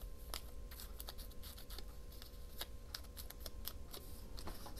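Craft paper being worked by hand: scattered small crackles and clicks, about one or two a second, over a faint steady hum.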